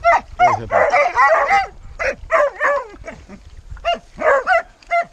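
Hunting hounds giving a rapid run of short, high yelps and barks, with a cluster of calls about a second in. They are worked up over their downed quarry.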